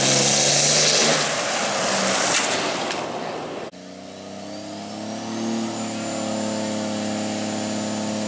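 Diesel pickup trucks racing on a dirt track at full throttle, a loud dense engine noise that cuts off suddenly about three and a half seconds in. After that, two diesel pickups run steadily at the starting line, one blowing black smoke, with a high whine that rises and then holds.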